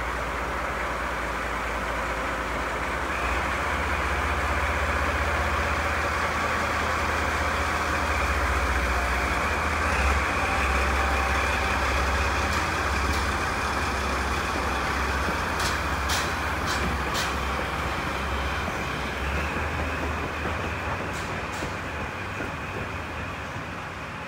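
JNR DD51 diesel-hydraulic locomotive running under power as it slowly hauls a C58 steam locomotive past, a heavy low rumble with a steady rushing hiss. It gives a few sharp clacks about 16 seconds in and fades toward the end as it moves away.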